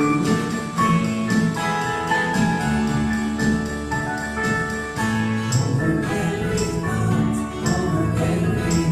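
Live contemporary worship band playing a song on electric keyboard and acoustic guitar, with steady sustained chords. From about halfway, a bright jingling hit joins roughly once a second.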